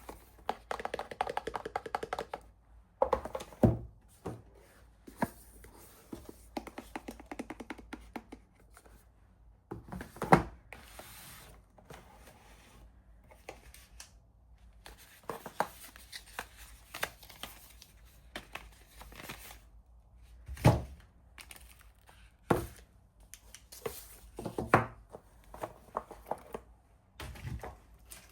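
Hands unwrapping soap packaging: paper and cardboard rustling, crinkling and tearing in irregular spells. Sharp thunks come about a dozen seconds apart, the loudest about ten and twenty seconds in.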